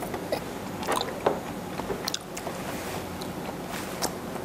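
A person chewing a cooked long-arm octopus head full of ink: soft wet mouth sounds with scattered small clicks.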